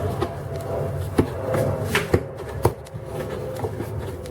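A knife cutting apples into chunks on a chopping board: a series of short, irregular knocks and clicks. Under them runs a low steady drone from a plane passing over, fading out about halfway through.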